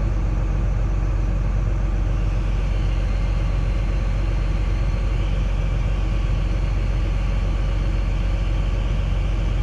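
Old John Deere excavator's diesel engine running steadily, heard from inside the cab while the bucket is being curled. A faint high whine comes in about three seconds in.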